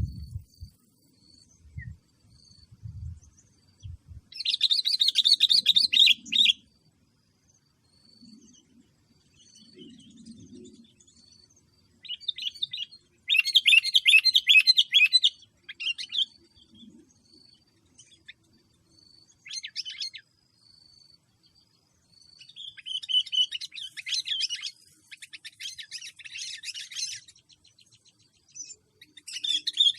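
Bulbuls calling in bursts of fast, high chattering notes, several runs of a second or more each with pauses between. Low thumps come in the first few seconds.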